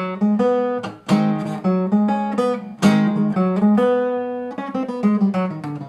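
Acoustic guitar playing a song intro: a chord struck with all fingers and cut short, followed by a run of single picked notes on the strings, the pattern repeating with chord strikes about a second and about three seconds in.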